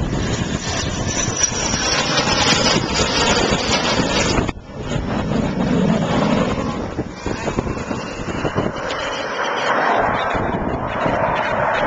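Aircraft engine noise from an aircraft passing low on approach, with wind buffeting the microphone. The sound breaks off abruptly about four and a half seconds in, then resumes.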